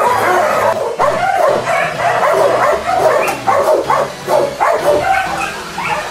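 Several dogs barking and yipping at once, short overlapping barks with no let-up.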